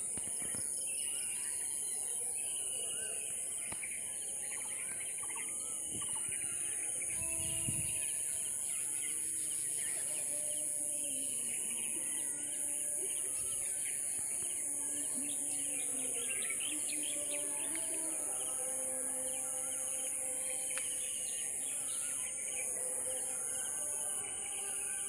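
Many birds chirping and calling, over a steady high-pitched insect buzz that runs without a break.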